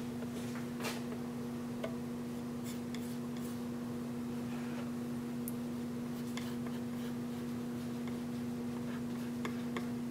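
Palette knife scraping and tapping as it spreads thick acrylic paint on a small wood panel: faint scratchy strokes and scattered light ticks. A steady electrical hum runs underneath.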